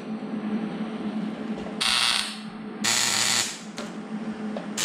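A power tool run in three short bursts, about two seconds in, about three seconds in and at the very end, over a steady low hum.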